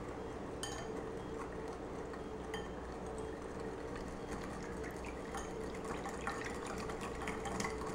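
Wire whisk beating a thin liquid sauce in a bowl: quiet, continuous liquid sloshing with faint ticks of the wires against the bowl.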